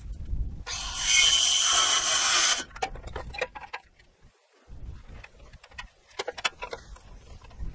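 Handheld power drill running in one steady burst of about two seconds, starting about a second in, followed by scattered light knocks and taps.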